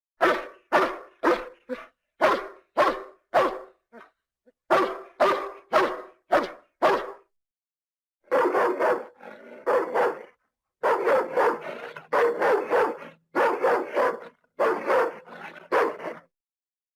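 Dogs barking: a quick run of short, sharp barks, about two a second, then after a brief pause a run of longer, fuller barks.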